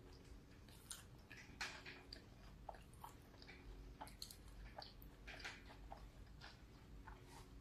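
Faint, irregular wet clicks and smacks of a person chewing a soft cheeseburger with their mouth closed, close to the microphone, one sharper smack about a second and a half in.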